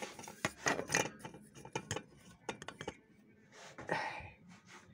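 Irregular light metallic clicks and knocks from handling the exposed mechanism of an opened Olympia sewing machine, a little louder about a second in and near four seconds.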